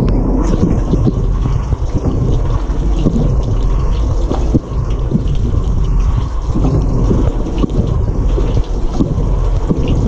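Spray water inside a running Bosch dishwasher, heard from within the tub: loud, dense splashing and pattering with many irregular spatters over a constant low rumble.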